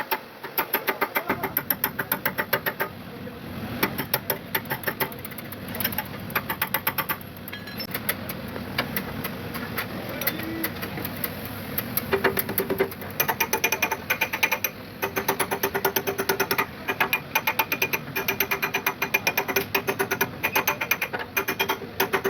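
Rapid light hammering or tapping on metal, about four or five strikes a second, in bursts with short pauses between them, as radiator parts are worked into place.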